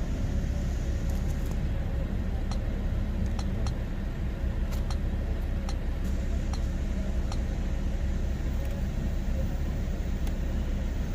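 Steady low rumble of the 2005 Nissan X-Trail's engine idling, with a series of sharp clicks from keys being pressed on a handheld diagnostic scan tool.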